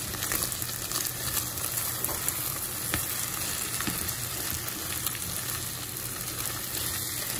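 Diced potatoes, sausage, bacon, onions and scrambled egg sizzling in a frying pan, stirred with a spatula that scrapes and ticks against the pan now and then.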